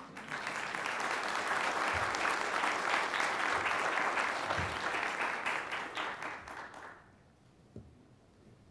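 Audience applauding, starting at once and dying away about seven seconds in.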